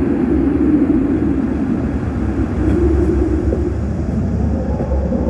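Steady low rumbling roar, with a faint tone slowly rising in pitch near the end.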